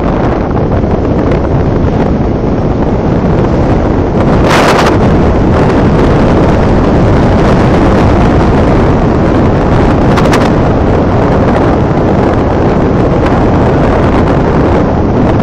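Loud wind buffeting the microphone of a moving car, over steady road and engine noise. Two brief harsh bursts of noise cut through, at about four and a half and about ten seconds in.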